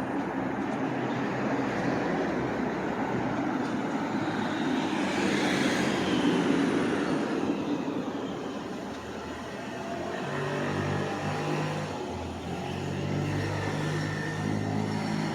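City street traffic: a car passes close by, loudest about six seconds in, over a steady hum of street noise.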